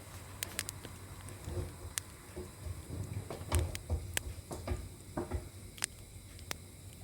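Irregular light clicks and a few soft knocks of kitchen utensils and containers being handled and set down.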